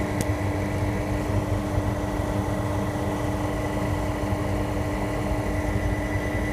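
A machine running steadily: a constant hum with a steady pitched tone over a low rumble.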